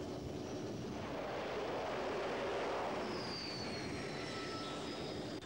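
Jet engines of a Grumman F-14 Tomcat running on a carrier deck: a steady rushing noise that swells over the first three seconds and then eases off, with a faint high whine falling slightly in pitch in the second half.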